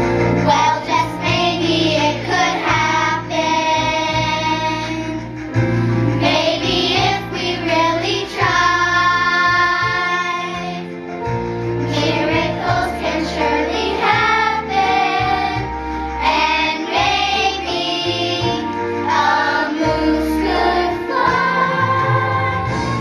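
A children's choir of fifth graders singing a Christmas song together over an instrumental accompaniment with sustained low notes.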